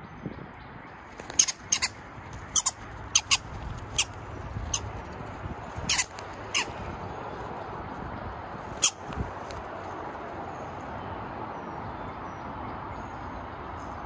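Red-bellied woodpecker pecking at a seed cake close to the microphone: about ten sharp, irregular taps over the first nine seconds. After that only a steady background hiss remains.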